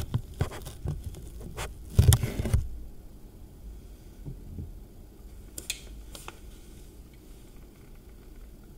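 A run of clicks and knocks in the first few seconds, loudest around two seconds in, then a low steady hum with two faint clicks a little later.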